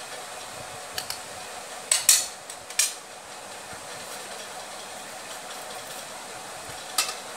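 Steady hiss with a few sharp clicks and clatters of a metal hand lemon squeezer and a plastic bowl being handled: two light clicks about a second in, the loudest clatters around two and three seconds in, and one more near the end.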